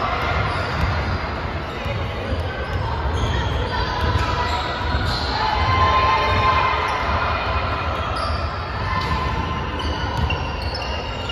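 A basketball being dribbled on a hardwood gym floor, with repeated thuds, short sneaker squeaks and the general noise of players and spectators in a large echoing hall.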